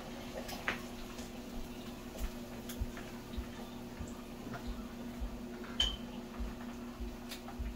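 A metal spoon clicking and clinking irregularly against a frying pan while fried banga mary fish pieces are lifted out, with one sharper ringing clink near the end, over a steady low hum.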